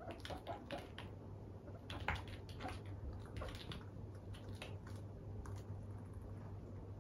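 Quick, irregular light clicks and taps from a guinea pig moving about, in bunches that thin out after about five seconds, over a faint steady low hum.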